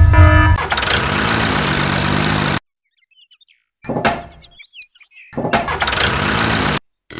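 Engine running, heard twice for about a second and a half to two seconds each time, with a low pitch that rises and falls and an abrupt cut-off. A few short bird-like chirps come in the gap between the two.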